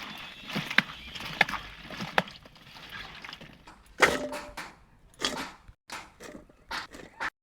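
Irregular knocks and clatter: a few sharp taps in the first couple of seconds, a louder clatter with a brief ring about four seconds in, then scattered short knocks with quiet gaps between them.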